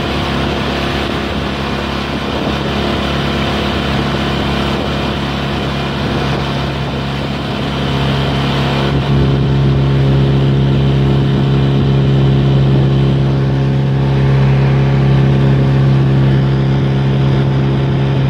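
Outboard motor running steadily at speed, pushing an aluminium boat along a river, with a hiss of water rushing past the hull. The engine's drone grows louder about nine seconds in.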